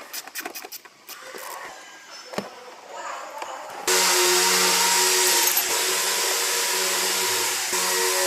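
Light clicks and knocks of tools on the steering parts. About four seconds in, a loud, steady whir of a power tool starts suddenly and keeps running.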